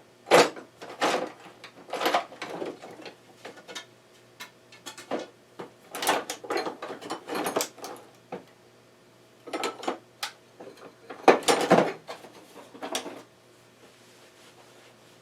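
Rummaging through metal hand tools while searching for a file: irregular bursts of clattering and clinking as tools are moved about, which stop near the end.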